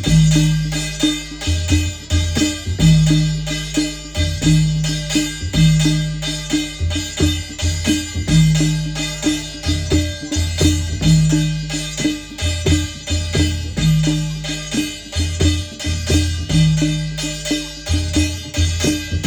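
Adivasi percussion ensemble: madal and dhulgya drums with a struck brass thali plate, playing a steady repeating rhythm. Deep ringing drum strokes recur every second or two under a constant fast clatter of metal.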